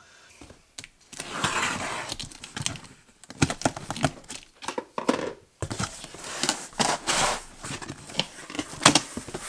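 Cardboard box being opened by hand: the cardboard rustles and scrapes as the flaps are pulled apart, with scattered knocks and clicks, the sharpest near the end.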